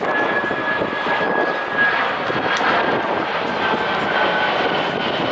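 Twin-engine military jet transport flying past overhead: steady jet engine noise with a high whine that slides slightly lower during the pass.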